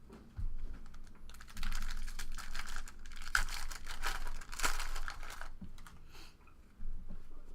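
Baseball trading cards being handled and flipped through: a run of rapid crisp clicks and rustling lasting about four seconds, starting a little over a second in.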